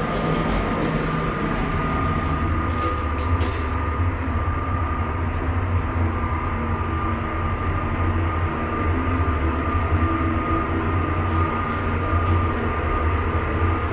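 2006 Schindler hydraulic elevator travelling up, its pump motor giving a steady low hum inside the car that grows stronger a few seconds in, with a steady thin high whine over it. A few light clicks sound in the first few seconds.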